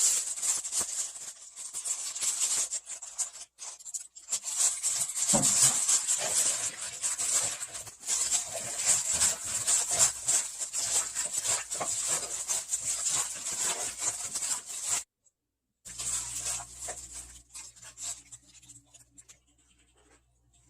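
Irregular rustling, squishing and rattling as warty sea squirts are tossed and mixed with seasoning in a bowl, in several stretches, stopping briefly near the middle and fading out toward the end.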